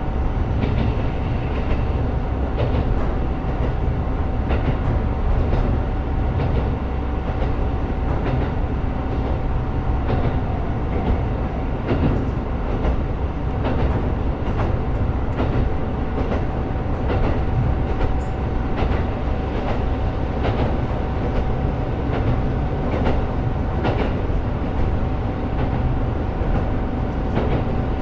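A KiHa 125 diesel railcar running between stations: a steady low rumble of engine and wheels on the track, with a thin steady whine and irregular clicks as the wheels cross rail joints.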